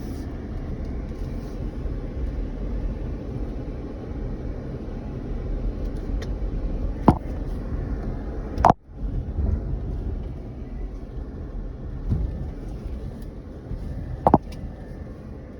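A 4x4 driving off-road on a rough trail: a steady low rumble of engine and tyres, with three sharp knocks spread through and a brief cut-out of the sound about midway.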